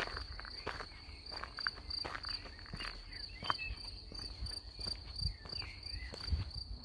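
Footsteps crunching on a gravel road at a steady walking pace, over a continuous high, cricket-like insect trill that pulses a few times a second.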